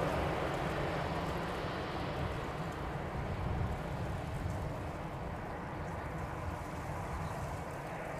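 Airbus A320's CFM56 jet engines running as the airliner rolls along the runway after landing, a steady rumble and hiss. The sound gradually fades and loses its hiss as the aircraft moves away.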